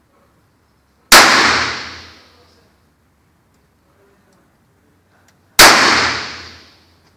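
Taurus 838 revolver firing two single shots about four and a half seconds apart, each a sharp crack followed by a long echoing decay.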